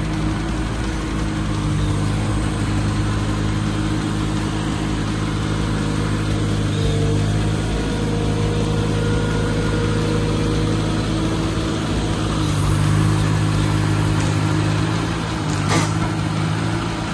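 Forklift engine running steadily at low speed as it carries a heavy load, with a single short knock near the end.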